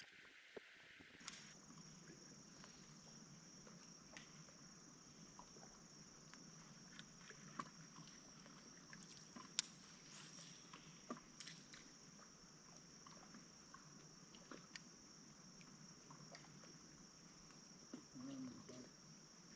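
Near silence: a faint, steady high-pitched tone with scattered light clicks and taps, one sharper tick about ten seconds in.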